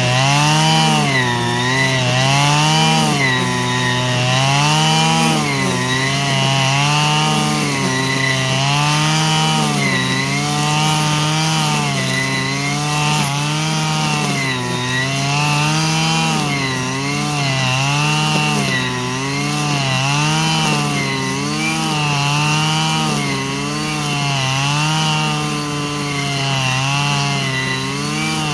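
Stihl FS 120 brush cutter's two-stroke engine running at high speed, its pitch rising and falling about once every second or so throughout.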